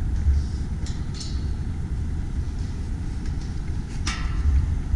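Wind buffeting an outdoor camera microphone: a low, uneven rumble, with a brief rustle about four seconds in.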